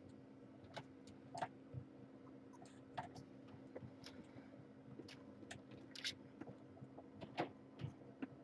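Faint, irregular little clicks and soft scuffs of kittens scampering and tumbling on a towel while a hand plays with them, over a steady low hum.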